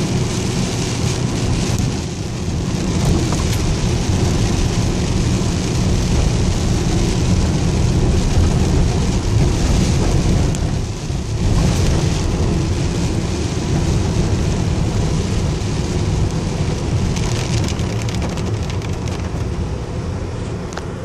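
Heavy rain falling on a moving vehicle's roof and windshield, heard from inside the cab over a steady low rumble of engine and tyres on the wet road, with a brief lull about halfway through.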